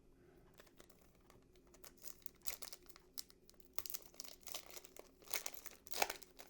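Foil trading card booster pack being torn open and crinkled by hand, in irregular crackles that grow busier from about two seconds in.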